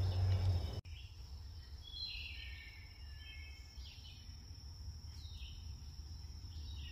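Woodland ambience: several birds chirping with short calls, some falling in pitch, over a steady high insect drone. A low rumble cuts off abruptly just under a second in.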